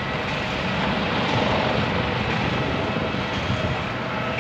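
Steady jet aircraft engine noise, a constant rush with a faint high whine held on one pitch.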